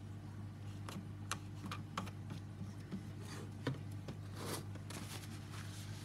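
Light clicks and taps of a small plastic bottle being handled and capped over a wooden desk, with a brief soft rustle about four and a half seconds in, over a steady low hum.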